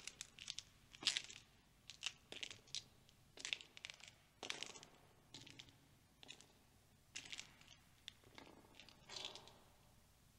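Slow footsteps crunching on a gritty floor, about one step a second, faint and uneven.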